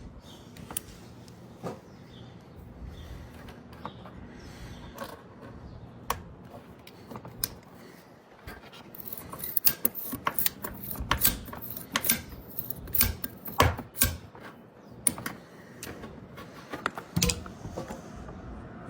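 Irregular sharp metallic clicks and snaps of hand tools and wire as a wire mesh is fastened onto a grille, coming thickest in a burst in the middle.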